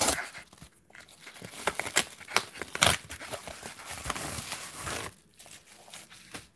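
A white paper padded mailer being torn open by hand: a run of ripping and crinkling paper, loudest near the start and about three seconds in, then quieter rustling as the bubble-wrapped contents are pulled out.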